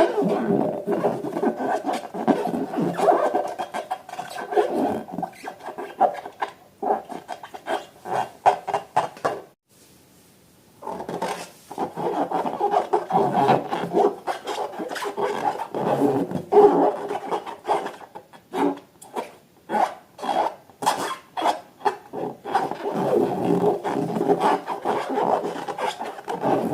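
Hands rubbing and squeezing soft, sticky material, a dense scratchy crackle with squeaky tones. It stops for about a second and a half around ten seconds in, then carries on.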